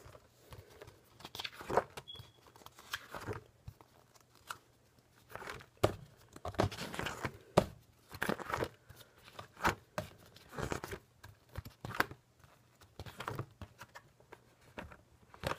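Pages of a spiral-bound book being turned one after another: a series of short papery rustles and flaps at irregular spacing, about one a second.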